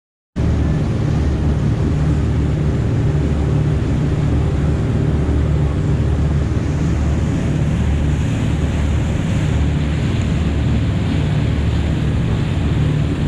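Charter fishing boat under way: the engine's steady low drone under the rushing hiss of water along the hull and the wake, with wind on the microphone. It starts abruptly about half a second in.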